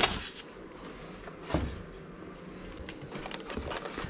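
Cardboard box and white foam packing insert being handled as the box is opened: scraping and rustling, with a loud scrape right at the start, a knock about a second and a half in, then softer rustling and small clicks.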